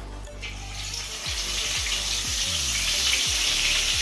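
A chicken piece lowered into hot oil in a steel kadhai. The oil starts sizzling about half a second in, grows louder, then holds a steady frying sizzle.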